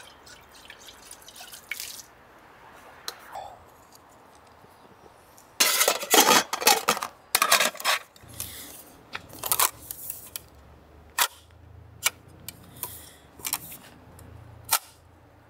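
Aluminium camp cookware being handled and packed away, with a pot's folding handles clicking. About halfway through there is a short run of loud metal clatters and clicks, then scattered lighter clicks and taps.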